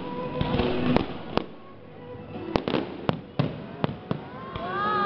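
Fireworks going off in a string of sharp bangs, several in quick succession in the middle.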